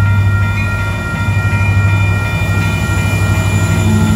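Union Pacific diesel locomotives passing close by, their engines a deep steady rumble, while the grade-crossing bell rings steadily above it.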